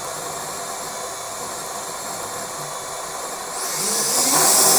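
Small FPV quadcopter's brushless motors spinning after being armed, a steady whirring hiss that gets louder and higher about three and a half seconds in as the throttle is raised.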